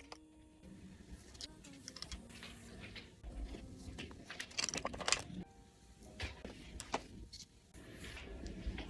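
Photocards and their plastic sleeves being handled in a binder: irregular crinkling rustles and light clicks, with faint music underneath.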